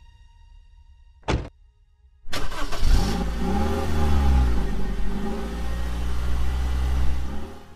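A short thud about a second in, then a Suzuki Swift's engine comes in suddenly and revs hard as the car pulls away and accelerates, its pitch rising and falling twice. It cuts off just before the end.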